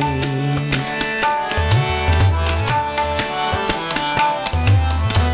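Tabla playing a steady rhythmic accompaniment, the bass drum's pitch sliding up in places, over sustained harmonium chords.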